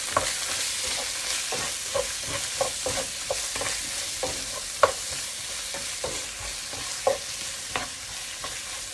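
Vegetables in tomato paste sautéing in a hot nonstick frying pan: a steady sizzle while a wooden spatula stirs and scrapes them, with irregular knocks of the spatula against the pan, two sharper ones about five and seven seconds in.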